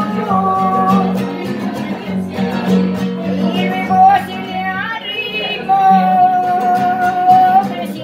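A woman singing a tonada, accompanying herself on a strummed nylon-string classical guitar. She holds long notes, the longest near the end, over steady strumming.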